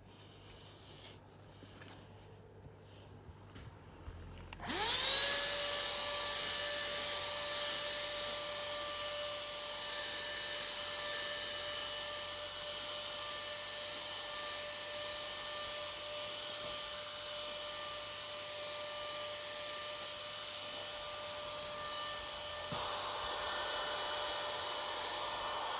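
A Parkside cordless paint spray gun's turbine motor starts a few seconds in, spins up in pitch and settles into a steady high whine with a rush of air as it sprays wood impregnant onto timber beams.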